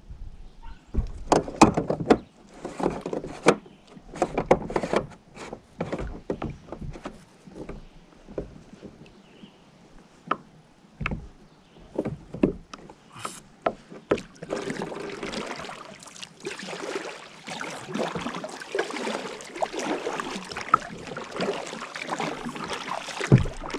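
Kayak paddling: scattered knocks and splashes from the paddle working the water and touching the boat, turning about halfway through into a steadier wash of splashing water.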